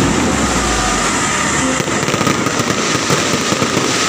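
Aerial fireworks display: a dense, continuous crackling of many small bursts, with a deep rumble from an earlier shell dying away about a second in.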